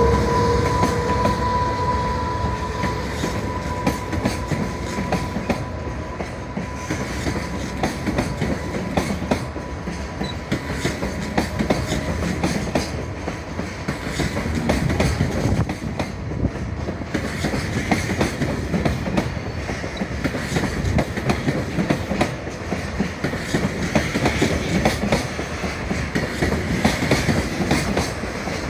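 Freight train passing close by, its wagon wheels clattering steadily over the rail joints. A high steady tone dies away over the first few seconds.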